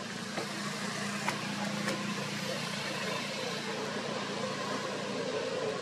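Steady background noise: a low hum under an even hiss, with a few faint clicks.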